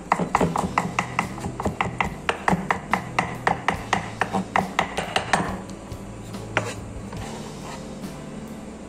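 Cleaver mincing garlic on a thick wooden chopping block in rapid, even chops, about four or five a second. The chopping stops about five and a half seconds in, and a single knock follows a second later.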